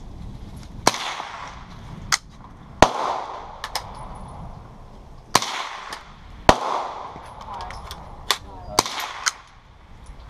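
.22 rifle gunshots: about ten sharp, irregularly spaced cracks, the loudest four followed by an echoing tail.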